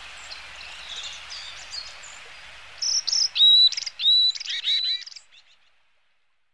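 Varied tits chirping at the nest: a faint steady hiss with a few soft calls, then from about three seconds in a quick run of loud, short chirps, before the sound fades out.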